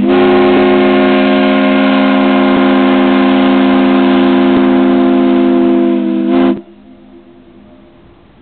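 SS Nobska's steam whistle blowing one long, loud blast: a deep chord of several steady tones at once. Its pitch sags slightly just before it cuts off about six and a half seconds in.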